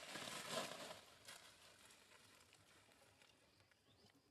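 Brief rustling of dry leaves and undergrowth as young macaques scramble and leap, fading out about a second in, then near silence with a few faint ticks.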